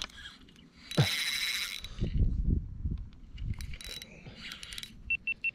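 A sudden splash on the water surface about a second in, with a short falling bloop, as when a topwater popper is chugged or struck, followed by scuffs and rustling of tackle handling. Three short high pips come near the end.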